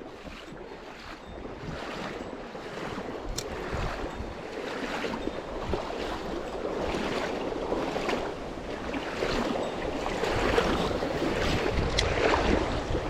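Rushing water of a mountain stream, a dense hiss that swells and surges unevenly and grows louder over the first few seconds, with some wind on the microphone.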